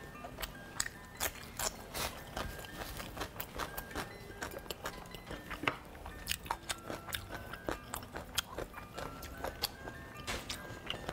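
Close-miked eating: repeated bites and chewing with crisp clicks and wet smacks as meat and shellfish are torn apart and chewed, over light background music.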